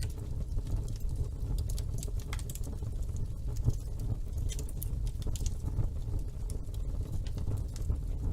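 Wood fire burning in a fireplace: a steady low rumble of flames with frequent small crackles and pops, one pop a little louder about three and a half seconds in.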